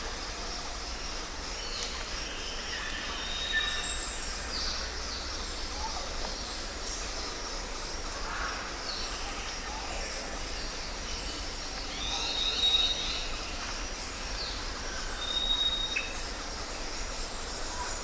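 Jungle ambience: a steady high insect hum with scattered bird chirps and short whistled calls, over a low rumble. The loudest is a bright call about four seconds in.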